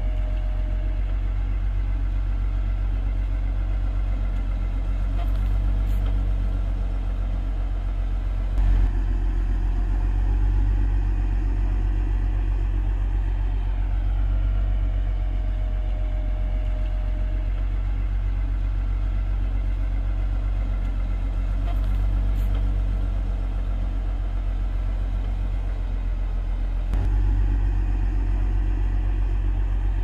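Diesel engine of heavy earthmoving machinery running with a low rumble, its pitch slowly rising and falling as it works. A short knock comes about nine seconds in.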